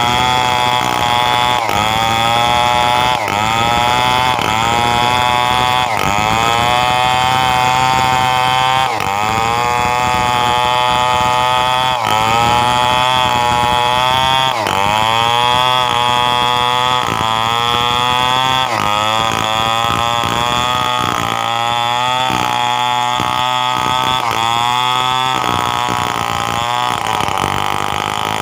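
Stihl 070 two-stroke chainsaw running hard while ripping coconut timber lengthwise. Its pitch sags and recovers every couple of seconds as the chain loads up in the cut, and in the last third it runs lower with a pulsing beat.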